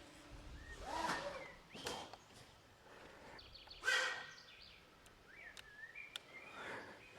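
Quiet outdoor ambience with birds chirping and whistling, and a few brief rustling noises.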